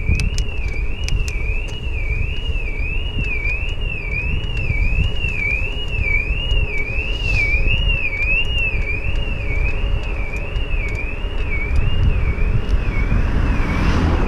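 A high, steady warbling tone that sweeps up and down about one and a half times a second without a break, over a low wind rumble on the microphone of a camera moving on a bicycle.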